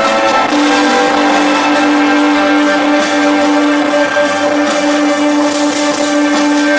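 Loud live electronic industrial rock from a band on stage, with a long held low note from about half a second in.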